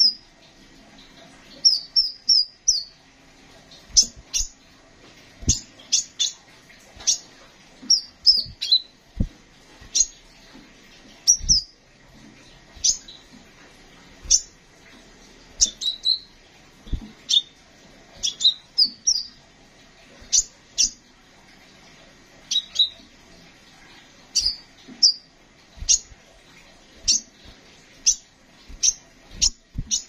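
Male crimson sunbird calling: short, sharp, high-pitched chirps, some dropping in pitch, given singly and in quick runs of two to four, every second or two, with a few soft thumps among them.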